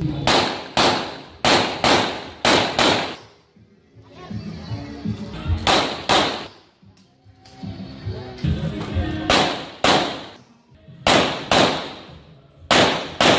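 Pistol shots from a Rock Island Armory Tac Ultra FS HC, fired mostly in quick pairs: about six shots in rapid succession at the start, then pairs spaced a few seconds apart as the shooter moves between targets. Each crack has a short echo, with background music underneath.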